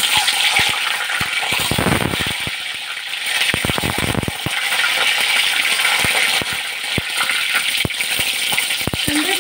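Boiled eggs frying in hot mustard oil in a kadai: a steady sizzle with many sharp pops and crackles of spattering oil. Two spells of heavier crackling come about two and four seconds in.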